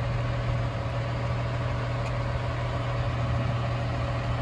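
A train idling with a steady low drone that stays even, with no change in pitch or level.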